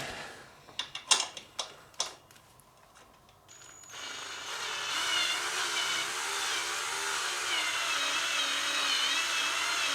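A few knocks and clicks, then from about four seconds in a drill runs slowly and steadily, its whine wavering in pitch as it drives a bolt into its threads.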